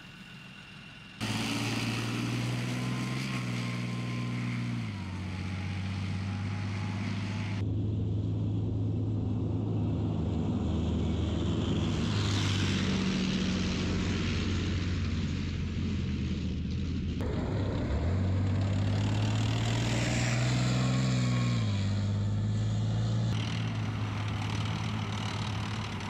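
Leopard 2 main battle tank's V12 diesel engine running loudly, revving up and settling back several times, with a whistling whine that rises and falls with the revs.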